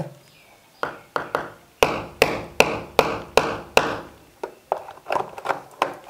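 Hammer driving a nail further into a plastered wall: a few light taps, then about six firm ringing strikes at roughly two and a half a second, then lighter taps.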